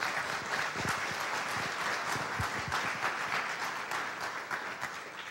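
Audience of a few dozen people applauding, a steady patter of clapping hands that tapers off near the end.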